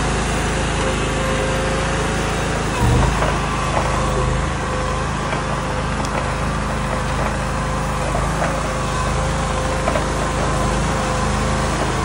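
Engine of a Chinese stand-on mini tracked skid steer running steadily while the machine drives on its tracks, with one thump about three seconds in.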